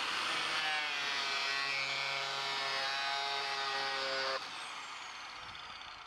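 Angle grinder with a homemade chipboard disc cutting through a plastic heating pipe by friction, the motor running steadily with a high whine. About four seconds in it is switched off and winds down with a falling whine.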